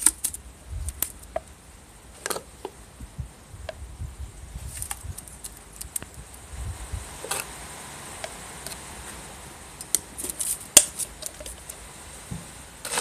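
A cut-off plastic bottle used as a scoop clicks and scrapes against the rim of a tin can while a sand-and-clay filling is tipped in around a square steel tube. The clicks and taps are scattered, with a soft gritty hiss of the pour midway and the sharpest tap near the end.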